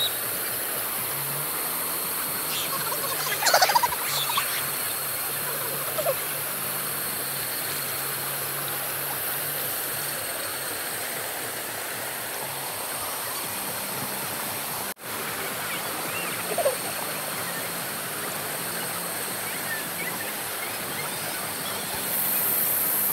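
Shallow river water rushing over a stony bed, a steady wash of noise, with a few brief distant shouts from people in the water.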